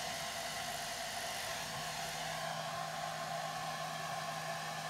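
Handheld hair dryer running steadily, a constant whir of motor and blown air with a low hum underneath, drying the makeup.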